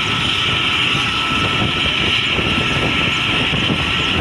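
Mi-17 helicopter running on the ground with its rotors turning: a steady, high turbine whine over a constant low, rough engine and rotor noise.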